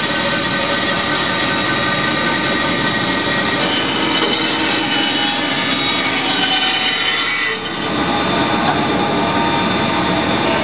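CNC bandsaw running and cutting a circle out of a plywood panel: a steady machine whine over the hiss of the blade in the wood, with a brief dip about three quarters of the way through.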